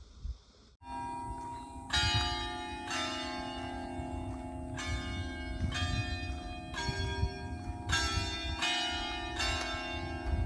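Church bells of the shrine's red-brick towers ringing on the hour: several bells struck in an uneven pattern about once a second, their tones hanging on between strikes. They start suddenly about a second in, after a faint insect-like hiss.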